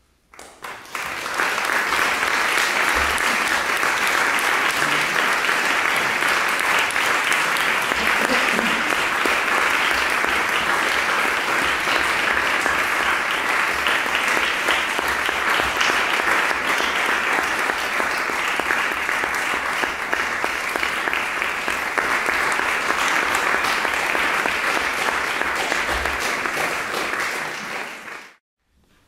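Audience applauding steadily, starting suddenly and cutting off abruptly near the end.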